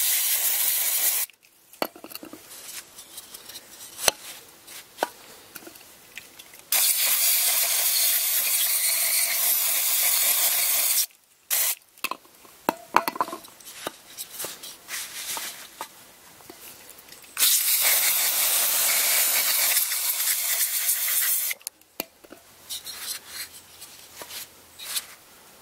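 Aerosol mass airflow sensor cleaner hissing out of the can in three sprays: a short one at the start, then two long ones of about four seconds each, washing carbon and road muck off the sensor. Light clicks and knocks come between the sprays as the sensor is handled.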